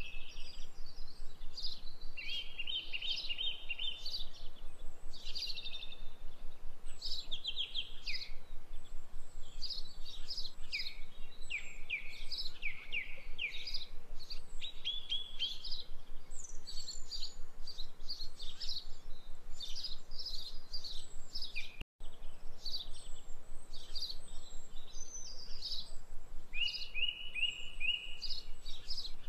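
Birds chirping and twittering without pause, a dense run of short, quick calls, many sliding downward in pitch. The sound cuts out for an instant about two-thirds of the way through.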